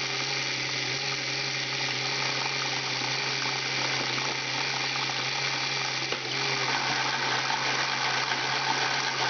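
Small electric motors and plastic gear trains of a LEGO painting machine whirring steadily, with a constant low hum under a gritty, ratcheting whine.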